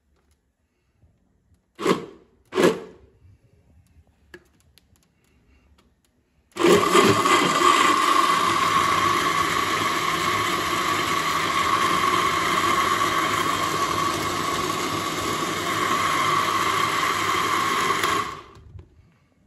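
Electric countertop blender running on a jar of liquid: a loud, steady motor whine with churning that starts about six and a half seconds in, lasts about twelve seconds, then winds down. Two short bursts of sound come about two seconds in, well before the main run.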